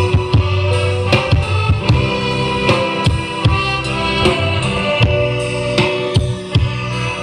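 Music with a drum kit, strong bass and guitar, played back through a speaker setup under sound test, with a steady beat.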